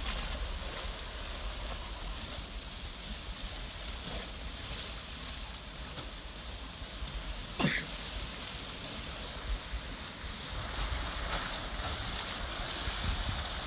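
Wind buffeting the microphone over the steady wash of ocean surf against the lava cliff below, with one brief sharp sound about halfway through.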